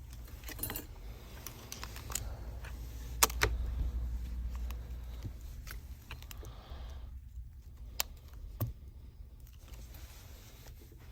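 Scattered small clicks and taps of phone parts and small tools being handled while a smartphone is reassembled, the loudest pair about three seconds in. A low steady hum lies under them.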